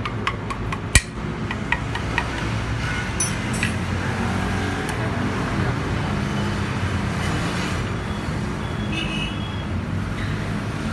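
A few light metal clinks in the first two seconds, from parts and tools being handled while refitting the scooter's transmission, over a steady rumble of passing traffic.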